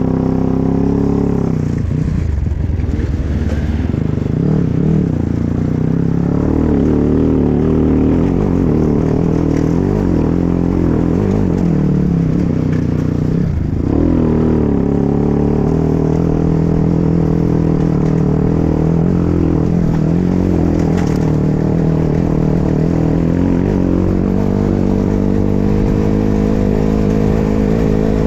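Enduro dirt bike engine running under load off-road, the revs rising and falling with the throttle. About halfway through the revs drop briefly, then climb again.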